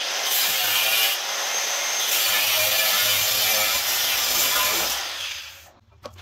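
Handheld angle grinder cutting into steel, a steady harsh grinding noise that dies away about five seconds in as the grinder comes off the work and winds down.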